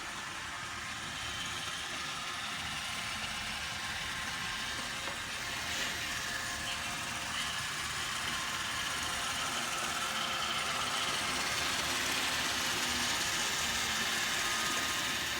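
Roomba robot vacuum running steadily, its motor and brushes giving a continuous whirring hiss that grows a little louder toward the end.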